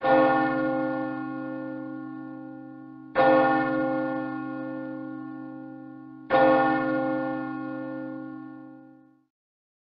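A single church bell tolled three times, about three seconds apart, each stroke ringing on and slowly fading; the last dies away shortly before the end.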